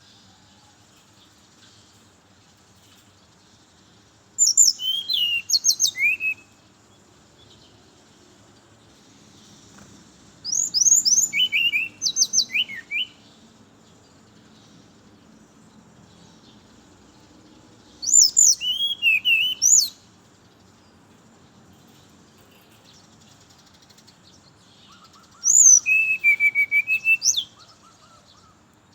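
Brown-chested jungle flycatcher singing: four phrases of quick, high whistled notes that sweep up and down, each about two seconds long and several seconds apart.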